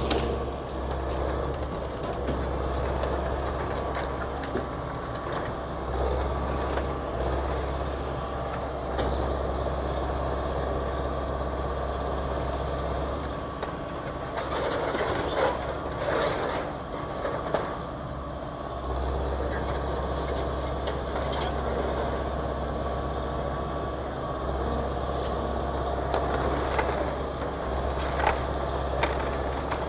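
Diesel engine of an excavator running, its low drone easing and picking up again, over the crunching and cracking of a building being torn down; the sharpest cracks come about halfway through and again near the end.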